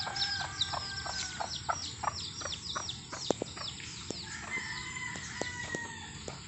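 Chickens calling: a rapid run of high peeping chirps, about five a second, that fades after about three seconds, with two longer drawn-out calls, one at the start and one after about four seconds.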